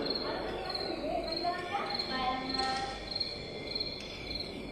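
Insect chirping: short high-pitched chirps repeating steadily, with faint voices under them.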